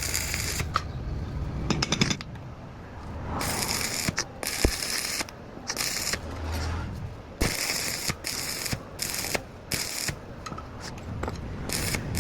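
Metal tools working on a rickshaw axle: irregular short bursts of scraping and rattling, with a few sharp clicks.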